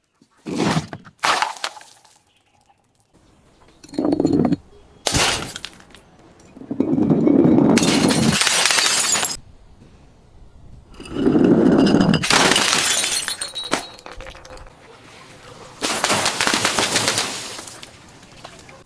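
Glass bottles breaking and shattering again and again. There are short sharp breaks in the first seconds, then longer crashes of a second or two each, with a low crunch under the bright shattering.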